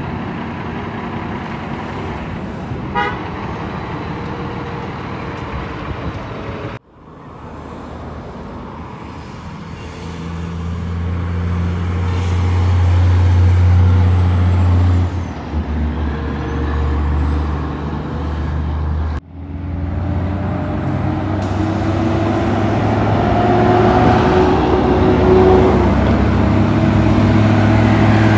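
Heavy diesel truck engine running under load, its pitch climbing as it accelerates. The sound breaks off abruptly twice.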